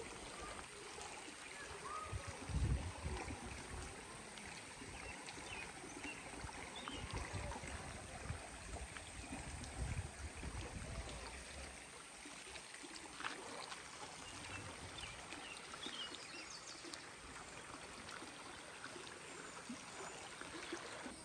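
Creek water flowing steadily, with a couple of low rumbles about three and ten seconds in.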